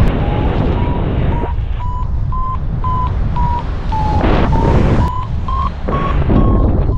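Rushing wind on the microphone in paraglider flight, with a variometer beeping about twice a second over it, its pitch dipping and rising. The beeping signals that the glider is climbing.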